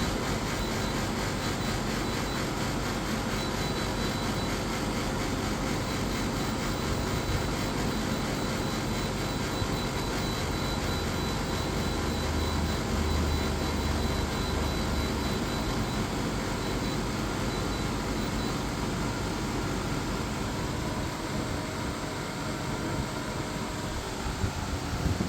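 Reiwa CP-1201RB portable air conditioner running: a steady rush of air from its fan over a low hum, with a faint thin high whine through much of it.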